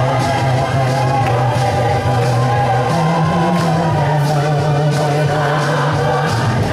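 Church congregation singing a hymn together, many voices at once, over held low bass notes that change pitch about halfway through and again near the end.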